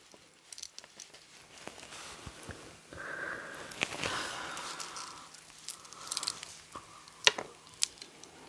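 A sparkly piece of costume jewelry being handled: several small sharp clicks and light rustling as it is turned over in the hands.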